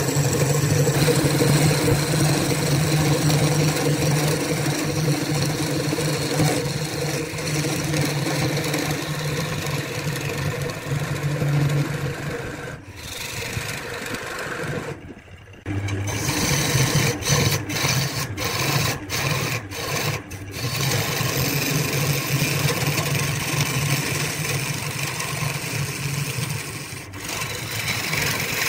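Wood lathe running with a steady motor hum while a tool or abrasive works the spinning wood, with a rasping noise over the hum. The sound breaks off abruptly several times in the middle.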